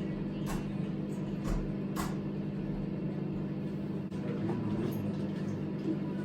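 Microwave oven running with a steady electrical hum while noodles cook, with a few faint clicks in the first two seconds.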